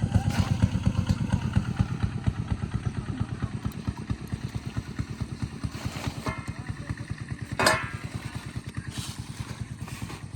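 A small engine running nearby with a steady, rapid beat of several pulses a second, slowly fading. A brief rustle or knock comes about six seconds in, and a louder one about eight seconds in.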